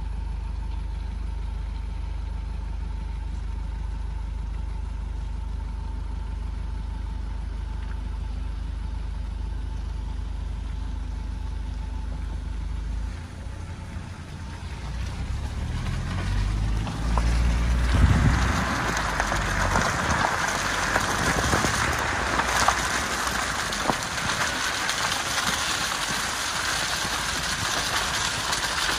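Hyundai Galloper 4x4 running, a steady low hum at first. About halfway through it gives way to a louder, noisier rumble with scattered knocks and rattles.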